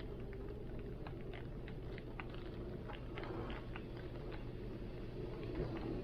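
Steady rain and wind, with many scattered sharp drops tapping through a constant wash of noise.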